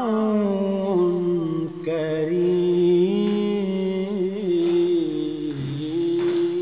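A single voice chanting a slow melody in the style of an Islamic prayer recitation, with long held notes that waver and slide between pitches.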